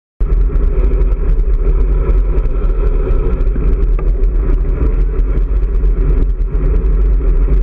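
Wind buffeting a bicycle-mounted camera's microphone while riding in traffic: a loud, steady low rumble mixed with road noise and a car running alongside.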